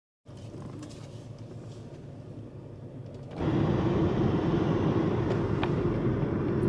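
Car cabin noise while driving: a steady low rumble of engine and road, which gets much louder, with a steady hum, about three and a half seconds in.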